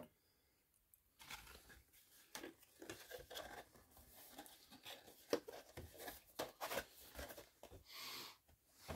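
Faint rustling and light clicks of trading cards and their paper packaging being handled, starting about a second in, with a longer rustle near the end.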